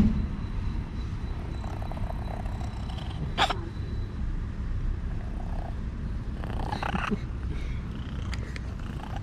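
Orange tabby kitten purring loudly and steadily while being stroked. There is a brief sharp noise about three and a half seconds in.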